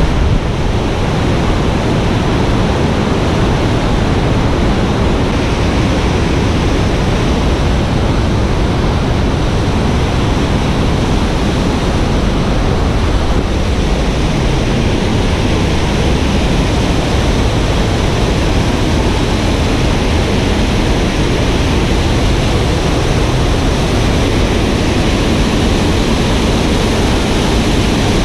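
Whitewater of the Deschutes River rushing over the rapids and falls at Dillon Falls: loud, steady rushing of churning water.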